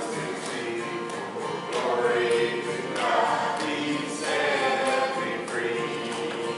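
A gospel hymn sung to acoustic guitar strumming with keyboard accompaniment.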